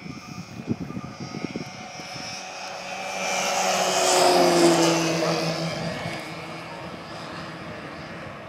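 Dualsky GA6000-8 brushless outrunner motor and propeller of a 93-inch Extra 330SC model aerobatic plane making a low pass. The motor and propeller whine grows louder, peaks about four to five seconds in, drops in pitch as the plane goes by, then fades.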